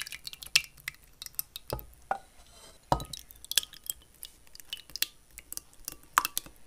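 Thick soup poured from a saucepan into ceramic bowls, with a spoon scraping and clinking against the pan and bowl rims. A run of irregular clicks and clinks, with a couple of duller knocks about two and three seconds in.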